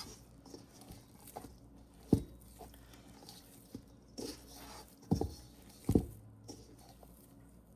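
Hands squeezing and folding very wet, sticky bread dough in a bowl: scattered soft squelches and short dull thumps, the loudest about two, five and six seconds in.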